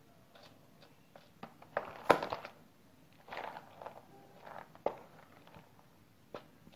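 Hands rummaging in a small clear plastic tackle box: scattered sharp clicks and short rattles of plastic and small fishing tackle, the loudest click about two seconds in.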